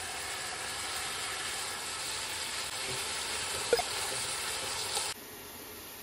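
Sliced onions and whole spices sizzling in hot oil in an aluminium pot, a steady frying hiss. A metal slotted spoon clicks once against the pot a little past halfway, and about five seconds in the sizzle cuts off abruptly to a quieter hiss.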